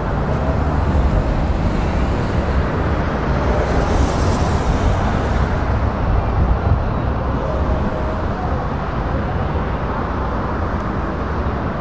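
Heavy truck diesel engines and road traffic rumbling steadily as lorries approach slowly, with a brief hiss about four seconds in.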